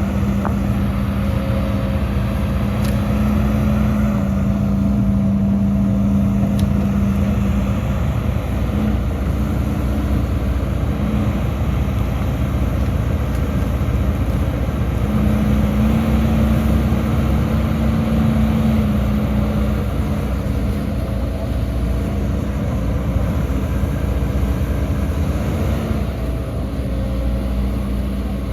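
Heavy diesel engine of earth-moving machinery running steadily under load, a deep rumble with a held hum that shifts slightly in pitch now and then.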